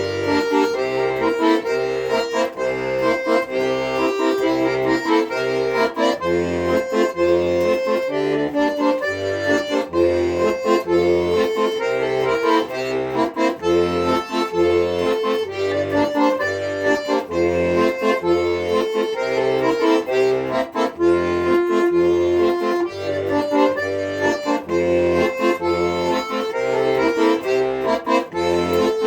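Accordion playing an instrumental passage: a melody and chords over a steady alternating bass accompaniment.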